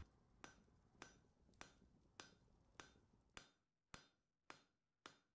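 Faint, evenly paced hammer blows on an anvil, a little under two a second, each with a short metallic ring.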